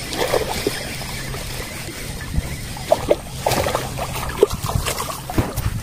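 Handling noise from a freshly landed snakehead and the tackle: scattered clicks, knocks and short rubbing squeaks as the fish is gripped and unhooked, over a low steady hum.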